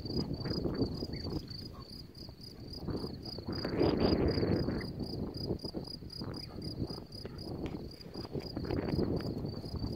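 An insect in the grass chirping in a steady high-pitched pulse, about five chirps a second, over wind rumbling on the microphone that swells loudest about four seconds in.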